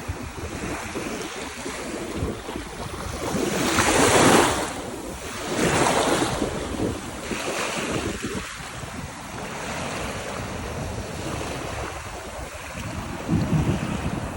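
Ocean waves washing onto a beach, rising and falling, with the loudest wave breaking about four seconds in and another near six seconds. Wind buffets the microphone, with a low gust near the end.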